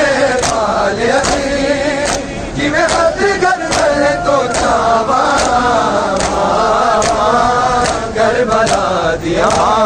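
Men chanting a Punjabi noha, a Karbala lament, together, with sharp hand-on-chest slaps of matam keeping a steady beat about every 0.8 s.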